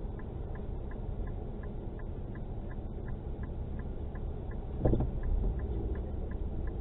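Steady low rumble of a car heard from inside its cabin as it idles and creeps forward, with a regular light ticking about four times a second. A brief louder knock comes about five seconds in.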